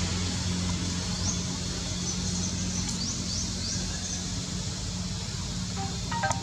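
Steady low background hum, with a quick run of short, high bird chirps about a second in.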